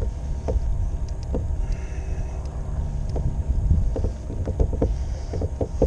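Wind buffeting the microphone in a low steady rumble, with light clicks and knocks from a spinning rod and reel being worked from a kayak.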